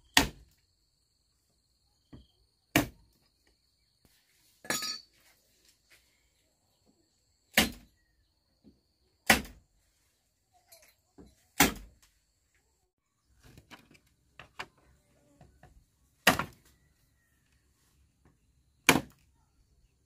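A hand tool striking bamboo: single sharp blows, eight in all, each two to three seconds apart.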